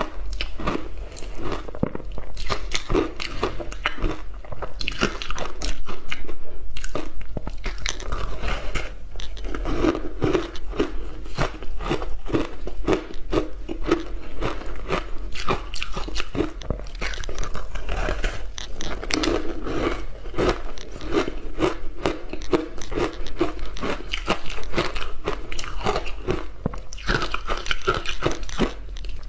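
Ice crunching and cracking between the teeth as big bites of a layered, matcha-dusted ice block are chewed: a dense, continuous run of sharp crackles and snaps.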